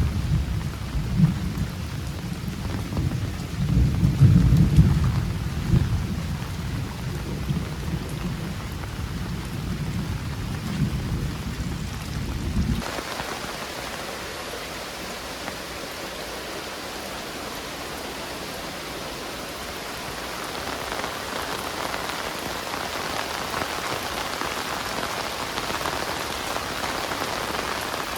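Heavy rain falling steadily, with a deep rolling rumble of thunder under it that cuts off suddenly about thirteen seconds in. After that only the rain remains, a little heavier near the end.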